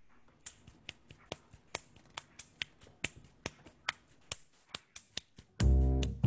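Finger snaps keeping a quick, steady beat, about four or five a second. About five and a half seconds in, a double bass comes in loud under the snaps, starting the hymn accompaniment.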